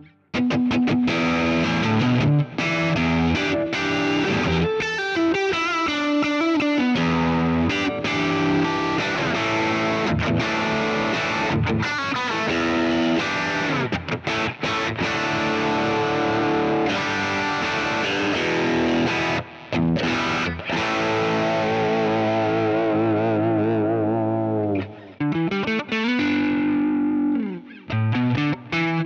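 Electric guitar played through Kemper profiles of a Fullerton (Fender) Pro Sound 2x10 amp: a run of chords and single-note lines, broken by a few brief pauses as the profile changes. Held notes waver with vibrato partway through.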